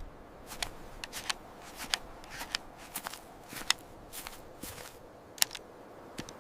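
A hiker's footsteps on a trail: quiet, irregular sharp steps, about two a second, over a faint outdoor background.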